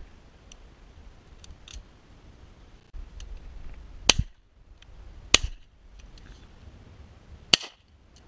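Three shotgun shots: two about a second and a quarter apart, about four seconds in, then a third near the end, with a few faint clicks between.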